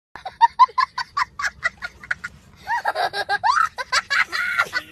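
High-pitched cackling: a rapid run of short, even bursts, about five a second, then after a brief pause longer cries that waver up and down in pitch.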